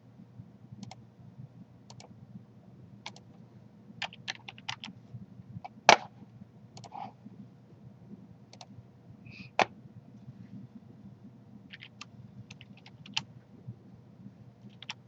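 Scattered clicks of a computer mouse and keyboard at irregular spacing, over a low steady hum; two clicks, about six and nine and a half seconds in, are louder than the rest.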